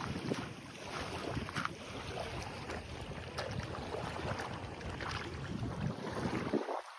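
Small sea waves lapping and washing on a sandy beach, with gusts of wind rumbling on the microphone.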